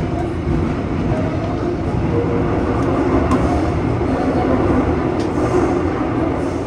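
Seoul Subway Line 5 train running, heard from inside the car: a steady rumble of wheels on track with a faint motor hum.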